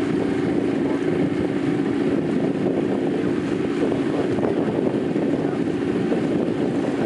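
Motorboat engine running at a steady drone.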